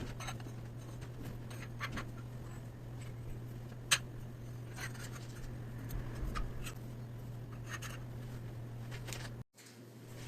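Light scratching and scattered small clicks over a steady low hum, with one sharper click about four seconds in; the sound drops out briefly near the end.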